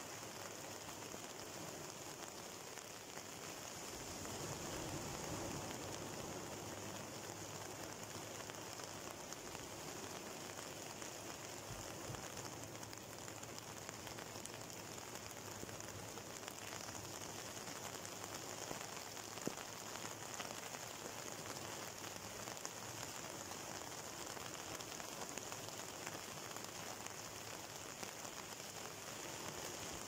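Sea waves breaking and washing over a rocky shore: a steady hiss of surf that swells a little about four to six seconds in.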